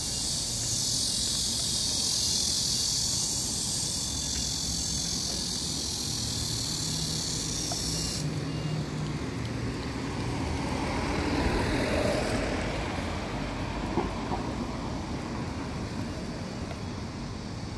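Street traffic rumbling, with a vehicle passing that swells and fades about ten to fourteen seconds in. A high, steady insect chorus runs over it and cuts off abruptly about eight seconds in.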